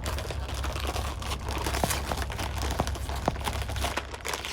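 Plastic bag of Skittles cotton candy crinkling and crackling as it is handled and opened, with many small sharp clicks.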